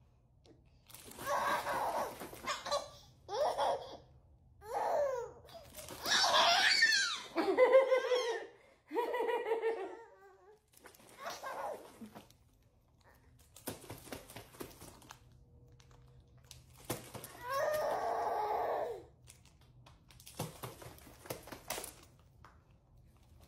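Baby girl laughing hard in repeated bursts of belly laughs and giggles, loudest a few seconds in, with quieter stretches between.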